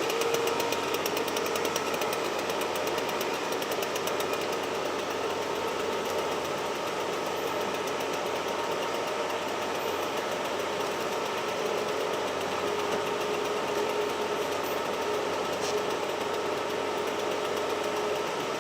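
Machinery running steadily with a rapid mechanical rattle.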